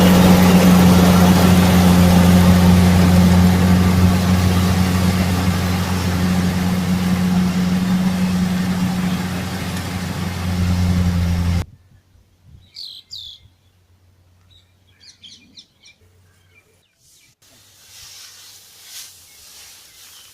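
Combine harvester engine running at a steady, heavy drone for about twelve seconds, then cutting off abruptly. After it comes a quiet stretch with a few short bird chirps.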